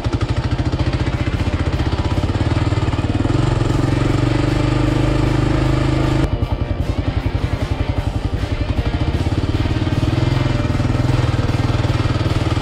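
Kawasaki KLR650 single-cylinder engine running under way at low speed on a dirt track, with a steady pulsing thump. The engine note rises over a few seconds, drops abruptly about six seconds in, then builds again.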